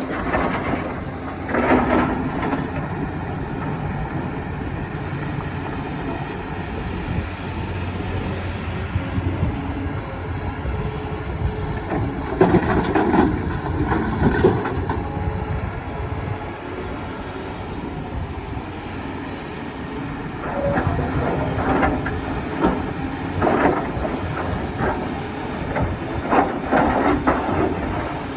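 Excavator running steadily while it cuts rock, with bursts of loud grinding and knocking of metal on rock: one shortly after the start, a cluster in the middle, and repeated ones through the last third.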